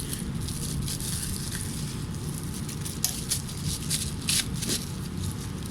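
Crinkling, rustling and light rattling of camping cook gear being handled as a 750 ml titanium pot is slid into place, over a steady low hum.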